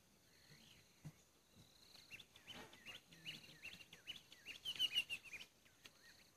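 A small bird chirping: a quick run of short, rising chirps that starts about two seconds in and gets louder past the middle, over a faint steady insect trill.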